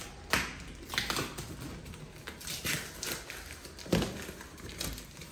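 Packing tape being picked at and peeled off a cardboard box, with scratching, crinkling and light taps on the cardboard, and one sharper knock about four seconds in.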